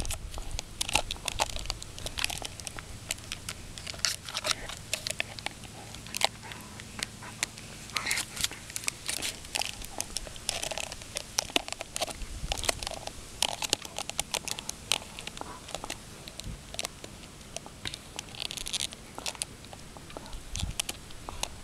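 A German Shepherd gnawing and chewing on a large bone, her teeth scraping and cracking on it in a run of irregular crunches and clicks.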